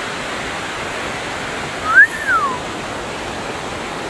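Steady rush of a river running full after rain. About halfway through comes one loud whistle that rises and then falls in pitch.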